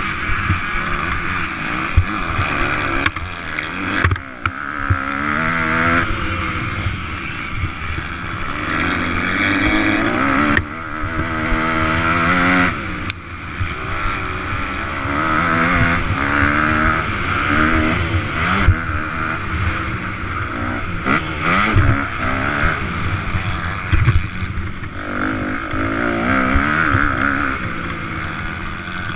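Motocross bike engine heard from onboard at race speed, revving up and down again and again as the rider works the throttle and shifts gears, with occasional knocks from the bike over the track's bumps.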